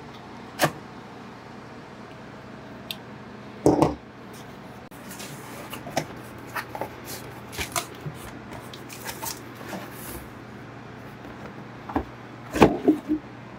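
A cardboard shipping box being opened by hand: the packing tape is slit, then the flaps and cardboard inserts rustle and scrape, with a sharp click early and a dull thud a few seconds in. Near the end, a few loud knocks as the hard plastic case inside is handled.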